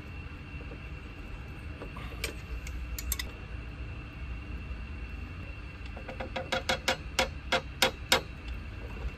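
Sharp metallic clicks of wrenches working on brass pipe fittings as they are tightened: a few around two to three seconds in, then a quicker run of about eight clicks, roughly four a second, near the end. A steady high whine runs underneath.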